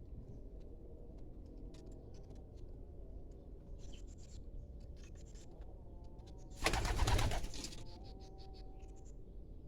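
Domestic pigeons cooing, with light scattered clicks. About seven seconds in comes a loud rustling flurry lasting about a second.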